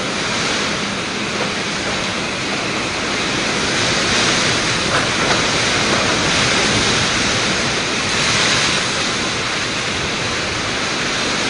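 Typhoon wind and driving rain: a loud, steady rushing roar that swells in gusts about four seconds in and again a little after eight seconds.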